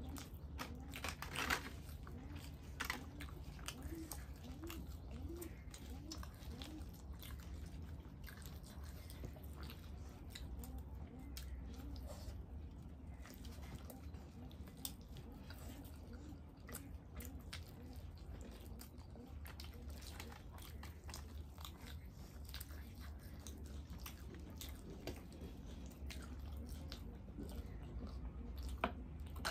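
Close-up eating sounds of two people chewing and biting into bhature (puffy fried bread) with chickpea curry: soft wet chewing with many small, irregular mouth clicks and smacks.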